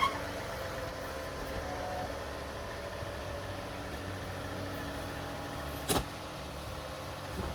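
Tractor engine running steadily, with one sharp knock about six seconds in.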